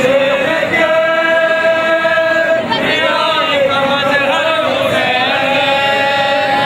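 A group of men chanting a nauha, a Shia Muharram lament, together in unison, in long drawn-out notes.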